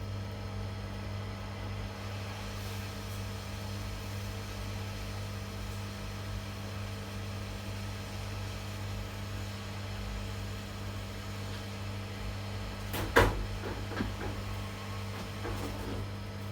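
Steady low electrical hum from workbench equipment, with one sharp knock about thirteen seconds in and a few lighter clicks after it.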